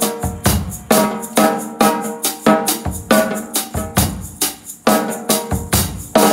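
Kumu drum kit played in a steady groove of snare, bass drum and cymbals, with small maracas held against the drumstick shaking along with each stroke.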